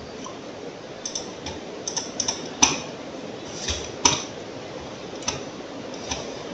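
Scattered, irregular clicks of a computer keyboard and mouse, about ten in all, the sharpest about two and a half and four seconds in, over a steady background hiss.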